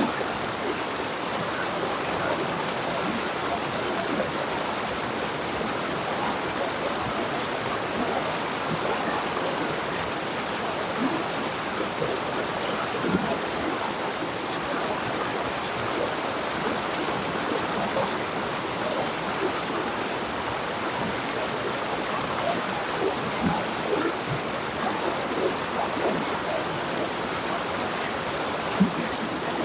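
River water flowing and burbling over rocks in a steady rush, with small splashes scattered throughout.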